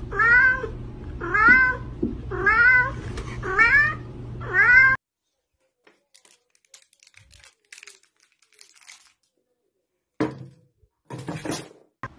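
A cat meowing five times, about one call a second, each call rising and then falling in pitch, before the sound cuts off suddenly. A few faint rustles and two short scuffing noises follow near the end.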